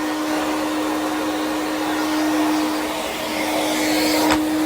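Backpack vacuum cleaner running steadily: an even rush of air over a constant motor hum. A short click sounds near the end.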